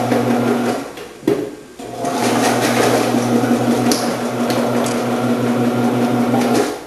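Omcan HLC 300 vegetable processor's electric motor running with a steady hum while its slicing and dicing discs cut potatoes into cubes. It stops a little before a second in, a single knock follows, and it starts again and runs until near the end.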